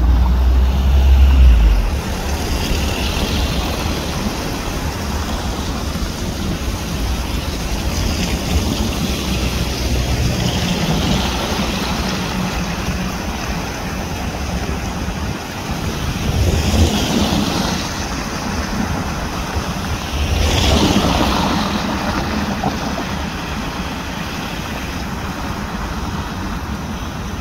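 City street traffic: cars passing by one after another, each swelling and fading, over a steady street hum. A gust of wind rumbles on the microphone for the first two seconds.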